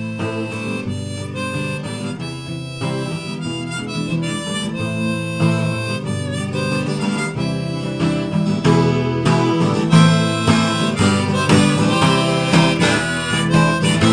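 Instrumental background music, harmonica over guitar, growing gradually louder.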